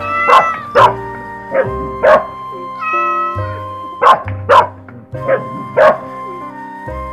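A dog barking in quick pairs, four double barks in all, over steady background music.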